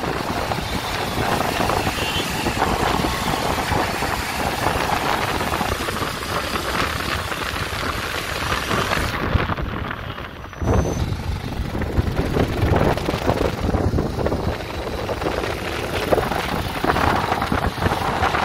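Riding noise recorded on a moving motorcycle: wind rushing over the phone's microphone mixed with engine and traffic noise, dipping briefly about ten seconds in.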